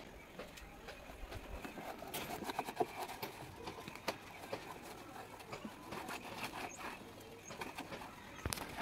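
A cloth rag rubbing and wiping over a motorcycle's wet plastic headlight cowl and visor, with faint scattered clicks and handling knocks.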